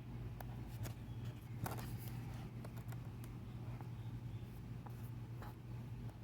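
Pages of a thick, heavy photobook being turned and handled: scattered soft rustles and light taps, the loudest about a second and a half in, over a steady low hum.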